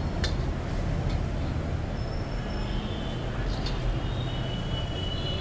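Steady low roar of a gas burner firing under a large iron kadai of simmering gravy, with a long metal ladle knocking against the pan twice, once just after the start and once past the middle.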